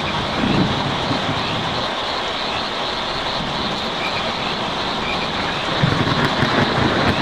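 Steady rain pattering on a tin roof, with a low rumble of distant thunder in the first second that swells up again near the end.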